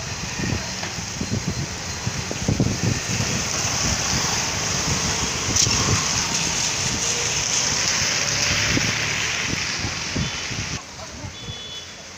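Storm noise: a steady rush of rain and wind, with gusts buffeting the microphone as low irregular thumps. The rush drops away sharply about eleven seconds in.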